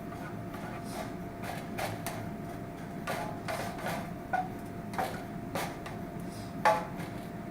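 A utensil knocking and scraping irregularly against a pan of creamed corn as it heats, with one sharper knock near the end, over a steady low hum.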